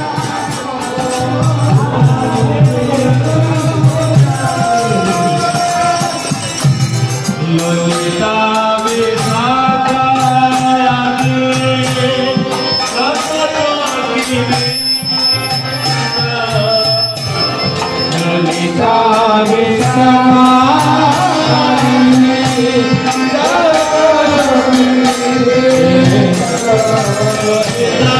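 Live kirtan: a lead singer chanting a devotional melody through a PA, with harmonium, mridanga drums and a jingling hand-percussion rhythm underneath.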